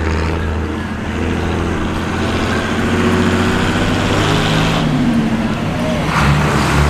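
A motor vehicle's engine running close by, its pitch rising and falling, with a rushing noise that swells and cuts off about five seconds in.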